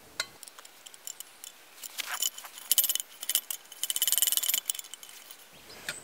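Small metal clicks and clinks from handling a Primus Shmel-1 petrol stove, with two short rasping strokes about halfway through as its hand pump is worked. The pump is not pumping, which the owner puts down to a dried-out rubber seal.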